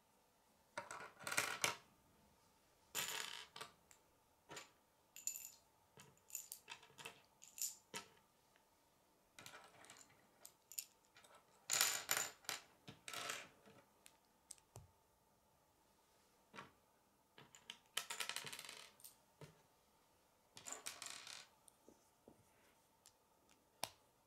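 Plastic K'nex connectors and rods clattering and clicking on a wooden table as they are handled and fitted together: a handful of short rattling bursts of parts being set down or shuffled, with scattered small clicks between them.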